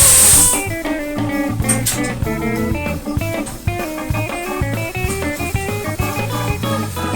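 Background music: a plucked guitar melody over bass and drums. A loud hiss at the very start cuts off about half a second in.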